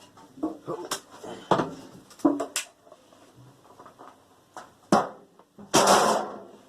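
Parts of a microwave being handled while it is dismantled: irregular sharp knocks and clatters of metal and plastic, with a longer, louder clatter near the end.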